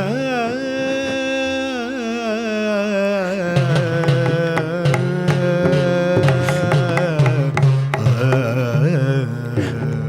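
Live Carnatic music. A melody line holds and ornaments long, sliding notes over a steady drone, and rhythmic hand-drum strokes come in about three and a half seconds in.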